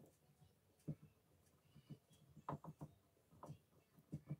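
Faint, scattered light clicks and taps of a small pointed metal tool worked against a block, with a quick run of four about two and a half seconds in and three more near the end.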